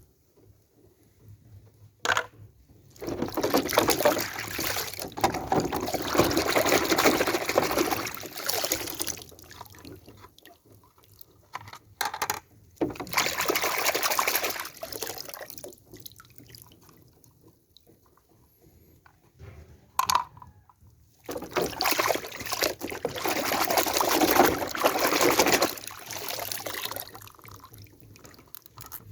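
Water pouring or sloshing in three spells of several seconds each, with a few sharp clicks between them.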